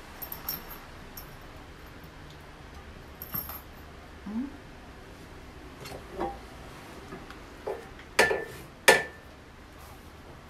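Small metal hardware and steel parts of an incline exercise bench clinking and tapping during assembly, then two loud knocks near the end as the steel frame is moved and turned.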